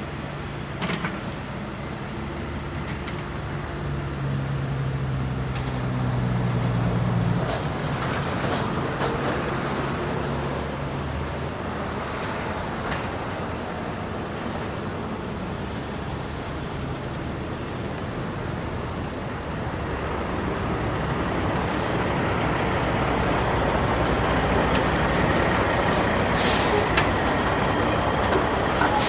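Heavy diesel construction machinery, an excavator and dump truck, running and working. A steady engine tone fades after about seven seconds into a rising rush of engine and mechanical noise, with a few sharp knocks.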